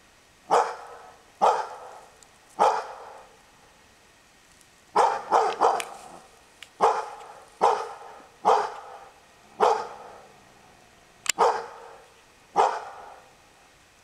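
A hunting dog barking about a dozen times in irregular bursts: three barks, a pause of about two seconds, then a quick run of barks and more spaced ones.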